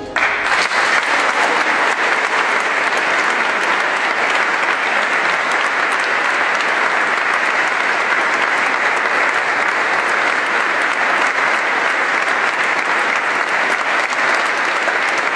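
Audience applauding steadily, breaking out just as a brass band's last note ends.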